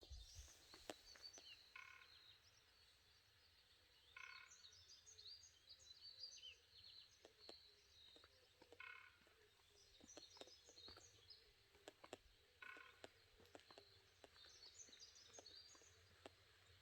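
Faint songbirds chirping high, with a short, buzzy sound of several stacked tones repeating about every four seconds, which the uploader takes for a wild boar snoring in the mountain.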